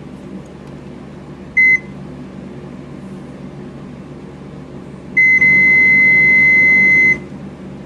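Fluke 110 multimeter's continuity beeper: one short high beep about a second and a half in, then a steady beep for about two seconds from about five seconds in. The long beep comes with a near-zero reading across the output-transistor pads, the sign of a short on that channel of the amplifier board.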